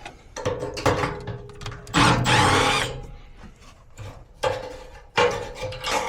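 Irregular clattering and scraping of tools and parts being handled while working on a furnace blower and its run capacitor, with one loud scrape about two seconds in.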